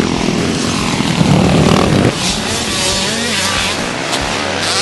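Motocross bike engines revving hard. One bike is loud and close for the first two seconds, and its sound drops off suddenly. After that, more distant bikes are heard, their engine pitch rising and falling as they rev.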